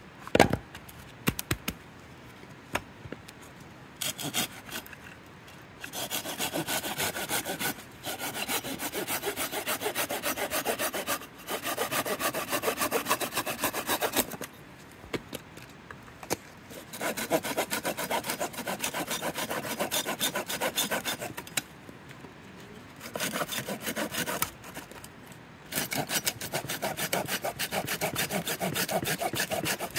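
A hand saw cutting through a piece of split firewood, in several runs of quick rasping strokes with short pauses between them. A sharp knock comes right at the start.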